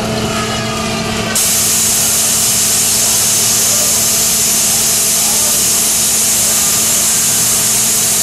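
Steam hissing steadily from a Huber return-flue steam engine, starting suddenly about a second and a half in, over a low steady hum from the engine.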